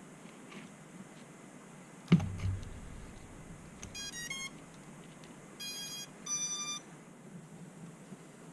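A sharp thump, then electronic beeps: a quick run of short changing tones followed by two longer steady beeps. These are typical of the ESCs of a BetaFPV 85X whoop playing their startup tones through the motors as a battery is connected.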